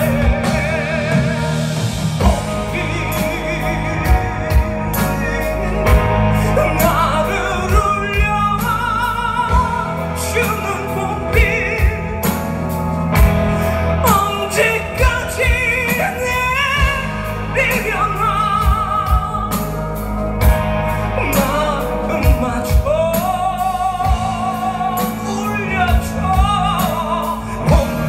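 Rock band playing live, with drum hits, bass and electric guitar. A high, wavering vocal line without words runs over them.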